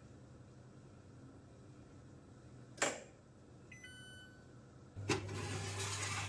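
Electric oven ending its drying cycle: a sharp click, then a short electronic beep signalling the end of the timer. About five seconds in, a rushing noise and a steady low hum start as the oven is opened.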